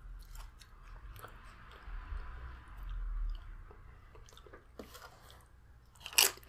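Faint clicks and scrapes of a tortilla chip scooping food from a bowl, then a loud crunch about six seconds in as the loaded tortilla chip is bitten.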